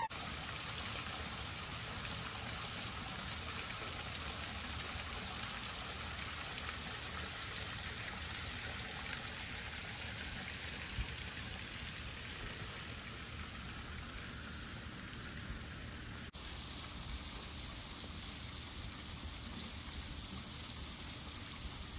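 Steady outdoor background hiss with no distinct events, even like running water, with a brief break about sixteen seconds in where the sound is cut.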